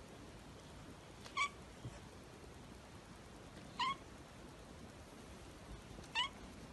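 Three short, high-pitched chirping calls from a small pet animal, each brief and spaced about two and a half seconds apart.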